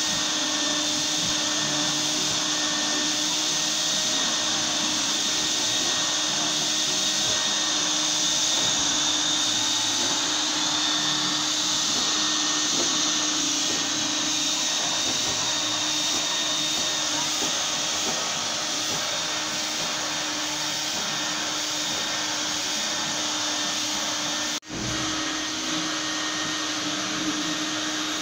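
Tub-style wet-and-dry vacuum cleaner running steadily with a high whine as its hose works over carpet and upholstery. The sound cuts out for an instant about 24 seconds in, then carries on unchanged.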